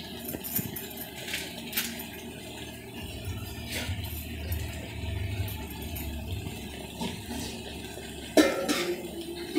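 Metal ladle clinking and scraping against an aluminium kadai full of curry, in scattered short clicks, with one louder ringing knock near the end, over a low steady hum.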